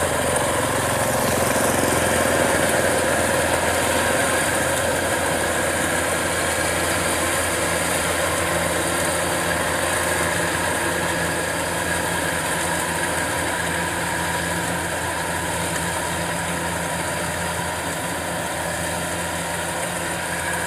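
Kubota DC-105X tracked rice combine harvester running at work while cutting rice, a steady engine and machinery hum that grows slightly fainter as it moves away.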